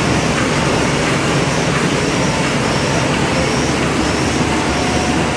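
GS-1080 automatic thermal laminating machine running: a steady mechanical noise of its rollers and sheet feed, with faint high-pitched tones that come and go.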